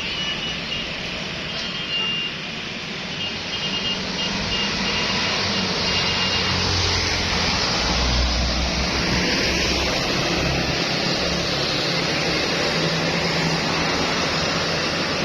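Road traffic passing: a steady wash of engine and tyre noise from heavy vehicles, with a deep engine rumble swelling about halfway through. Faint short high tones sound during the first half.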